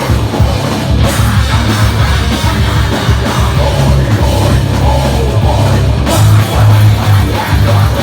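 Post-hardcore band playing live at full volume, with rock drums and a heavy, dense low end.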